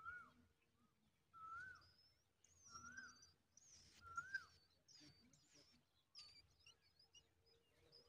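Songbird nestlings begging for food with thin, high chirps and twitters, the loudest around the middle as a parent arrives to feed them. Underneath, a short rising-and-falling call note is repeated four times, about one every 1.3 seconds, in the first half.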